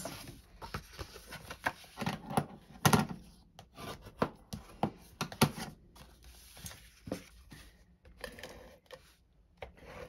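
Folded cardstock card bases being handled and slid about on a paper craft mat: rustling and scraping of card with scattered light taps, the sharpest knocks about three seconds in and again about five and a half seconds in.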